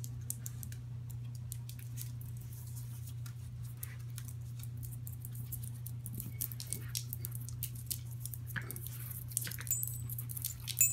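Puppies moving about and playing, making small scattered clicks and rustles over a steady low hum; the clicks come thicker in the last few seconds.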